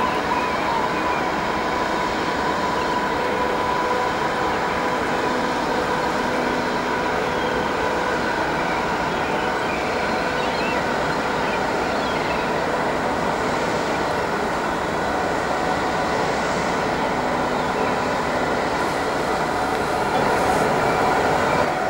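Ro-ro passenger ferry Girolata's engines and machinery running as the ship passes close by: a steady drone with a hum of several steady tones, a little louder near the end.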